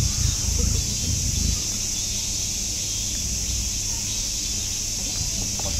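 Steady high-pitched drone of a summer cicada chorus, with a low rumble underneath during the first second and a half.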